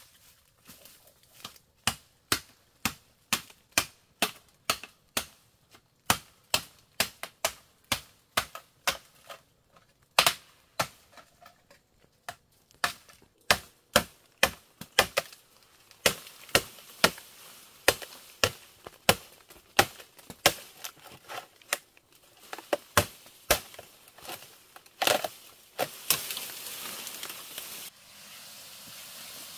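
Machete chopping into a green bamboo stem: sharp strikes about two a second, keeping on for most of the time. Near the end the strikes give way to a rustling of leaves as the cut bamboo comes down.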